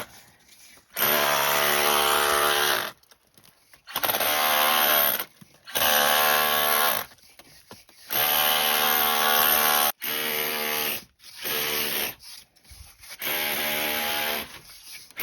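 A power tool run in seven bursts of one to two seconds with short pauses between, each burst at a steady pitch with a hissing edge, working on the cottage's stone wall, where the old cement pointing is being redone.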